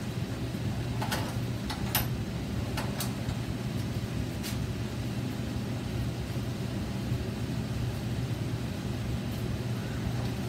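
A few light metal clicks in the first half as the vise of a 14-inch abrasive chop saw is worked on steel stock, over a steady low hum. The saw itself is not yet running.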